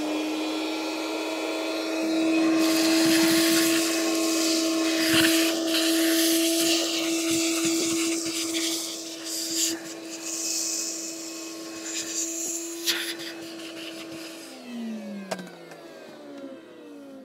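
Wet-and-dry shop vacuum running at full speed with a steady motor whine, sucking loose soil and grit up its hose with a crackling hiss. About fourteen seconds in it is switched off and the whine falls in pitch as the motor winds down.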